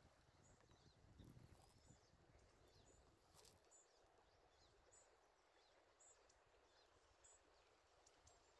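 Near silence: faint room tone, with faint short high chirps about once a second.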